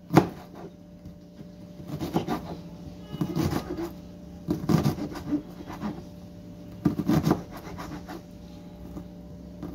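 Kitchen knife cutting through a white onion and scraping on the cutting board, about five separate cuts a second or two apart.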